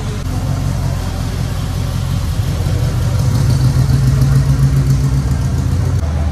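A car engine running close by, a low, steady drone that grows louder in the middle and changes near the end.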